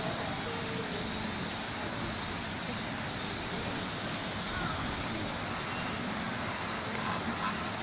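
Steady outdoor background noise: a constant high hiss with faint distant voices mixed in, and no distinct event.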